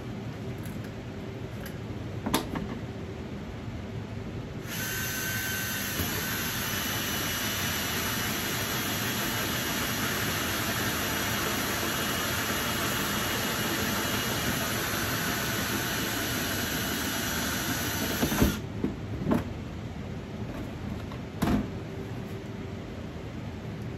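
Cordless drill with a hole saw cutting a hole through the plastic wall of a storage tub, a steady whine from about five seconds in that stops abruptly about eighteen seconds in. A few short knocks follow.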